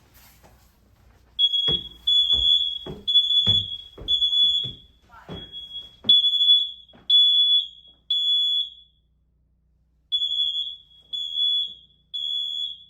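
Kidde combination smoke and carbon monoxide alarm sounding its self-test: loud, high-pitched beeps about once a second, with a short pause partway through.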